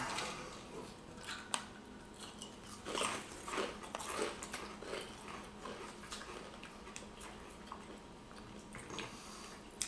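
Wavy, rippled potato chips being bitten and chewed: faint, irregular crunches and small clicks.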